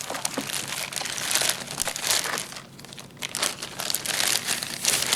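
Plastic wrapping crinkling as it is handled and pulled off a new revolver, in irregular bursts with a short lull about halfway through.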